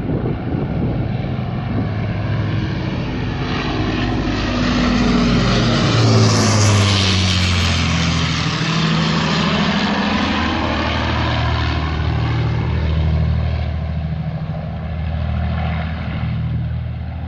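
Avro Lancaster bomber's four Rolls-Royce Merlin V12 piston engines running as it flies low overhead. The sound builds to its loudest about six seconds in, then its pitch drops as the aircraft moves away.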